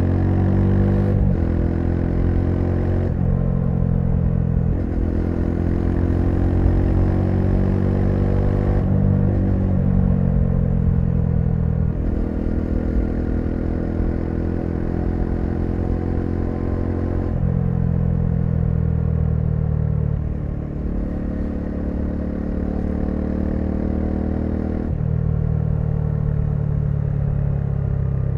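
Bajaj Dominar 400's single-cylinder engine running under way, its note climbing and settling with a sudden pitch step every few seconds as gears are changed.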